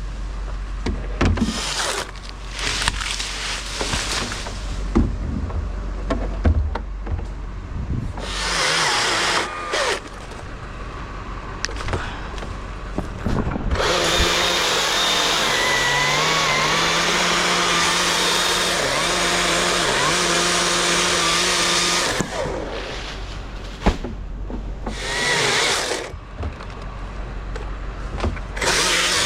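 Two-stroke chainsaw revving in short bursts, then running at a steady full throttle for about eight seconds in the middle as it cuts, with more short revs near the end.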